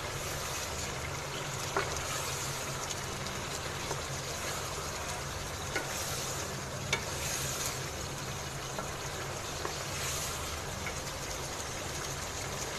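Chicken pieces in spiced gravy sizzling in a pan as they are stirred with a wooden spatula, with a few light knocks of the spatula against the pan. A steady low hum runs underneath.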